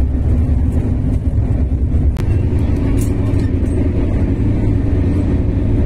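Steady low rumble of a train coach in motion, heard from inside an air-conditioned sleeper coach, with a single sharp click about two seconds in.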